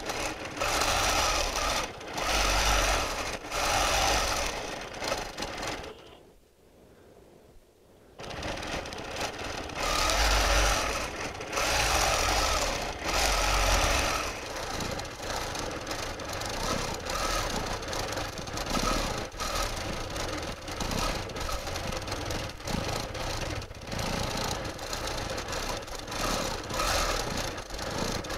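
Longarm quilting machine stitching in spurts as the hopping foot is guided along an acrylic arc ruler, stopping for about two seconds partway through, then running more evenly.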